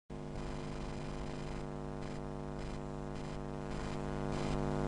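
A steady low hum with overtones, slowly getting louder, with a faint regular pulsing in the hiss above it about twice a second.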